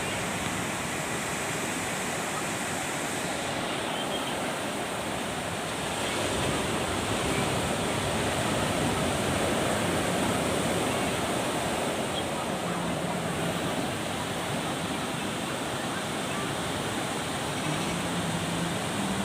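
Sea surf: waves washing onto a beach in a steady rush that swells for a few seconds near the middle and then eases.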